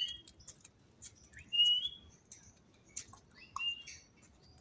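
A bird chirping: a short call that rises and then holds a high note, repeated three times about every second and a half, with faint clicks between.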